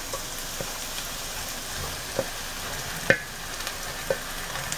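Chopped eggplant sizzling in a hot frying pan as it is scraped in from a metal bowl with a spatula, with a few short sharp knocks of the spatula on the metal, the loudest about three seconds in.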